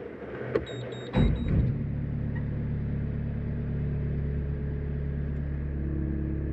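Skid steer engine started: a few quick electronic warning beeps, a short crank that catches about a second in, then the engine running steadily at idle.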